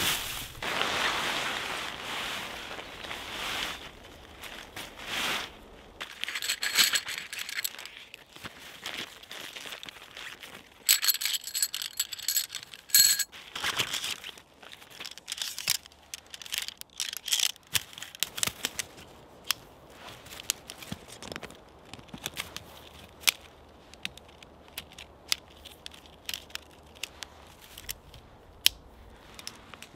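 Rustling and crinkling with scattered sharp clicks and two brief spells of metallic jingling: objects being handled close by.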